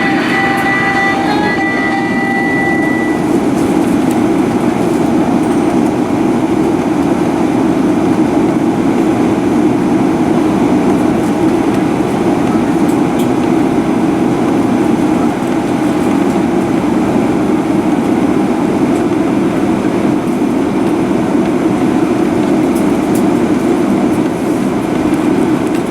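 Cabin noise inside a Boeing 737-900ER on the ground: a steady rumble from its CFM56-7B engines near idle and from the aircraft rolling along the taxiway. A faint steady whine runs under it and stops about three-quarters of the way in.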